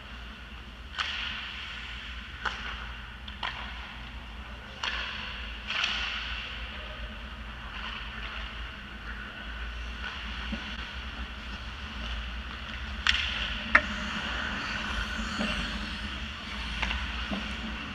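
Ice hockey play: skate blades scraping and carving on the ice, broken by sharp knocks of sticks and puck, several in the first six seconds and two loud cracks close together about two-thirds of the way through. A steady low hum of the rink runs underneath.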